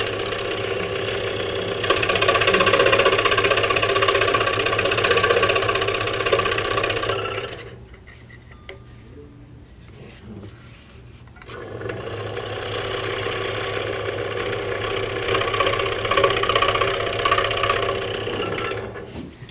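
Scroll saw running with a steady rattling chatter as its blade cuts dovetails in a thin board. It stops about seven and a half seconds in, starts again about four seconds later, and stops just before the end.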